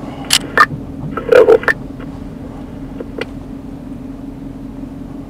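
A few sharp knocks and clicks as the body-camera wearer gets into the driver's seat of a patrol car, over a steady low hum in the car's cabin.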